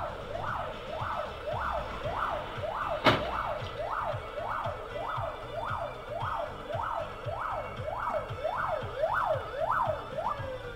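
Emergency vehicle siren wailing in a fast, even rise-and-fall, roughly one and a half to two sweeps a second. A single sharp knock comes about three seconds in, and near the end the pitch slides down.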